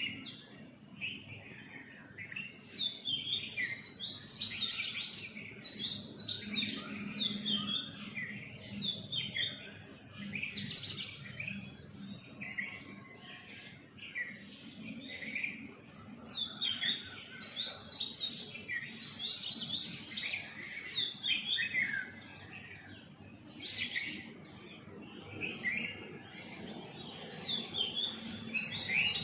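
Several small songbirds chirping: dense clusters of quick, high chirps and short trills, overlapping one another, with brief lulls between the busier spells.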